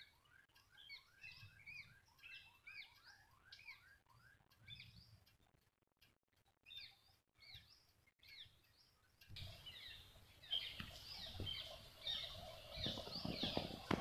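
House sparrows chirping: a faint, busy run of short, quick chirps. About nine seconds in, the chirping gets louder over a rumbling background with some low knocks.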